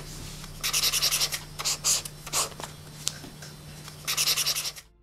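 Red pen scratching across paper in short strokes, with a quick run of scribbling strokes near the end, over a faint steady hum.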